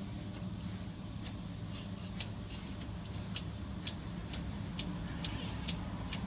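Hand primer pump on an Isuzu NPR diesel fuel filter housing being pumped by hand, clicking about twice a second with each stroke, over a steady low hum. The priming pushes air out of the fuel system until fuel comes out of the open lines.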